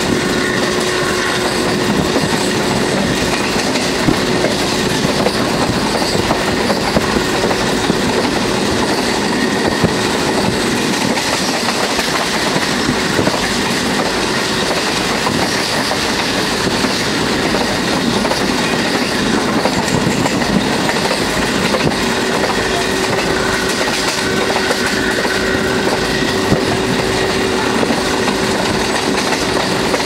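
Passenger train running at speed, heard from a coach window: a steady rush of wheel and wind noise with wheels clicking over rail joints. A steady hum drops out about a third of the way through and returns later.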